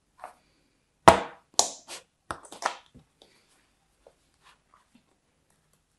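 Hands working kinetic sand and plastic sand molds: a quick run of five or six short, crisp crunches and knocks about a second in, the first the loudest, followed by a few faint ticks.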